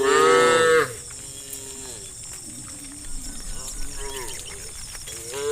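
Cows in a herd mooing: a loud moo at the start lasting under a second, fainter moos from other cows in between, and another loud moo beginning near the end.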